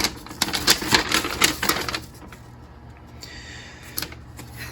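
A quick run of small clicks, taps and knocks of objects handled on a tabletop for about two seconds, then quieter, with a soft rustle near the end.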